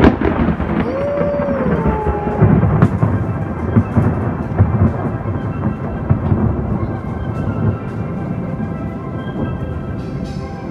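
Thunder: a sudden loud crack, then a long rolling rumble with repeated low booms that slowly eases.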